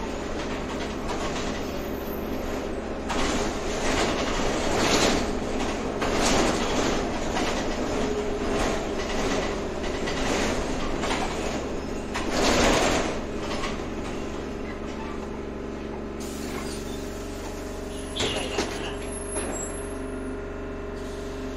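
Cabin noise inside a moving electric city transit vehicle: a steady motor hum under a ride rumble that swells several times, loudest about twelve seconds in, with a few sharp rattles near the end.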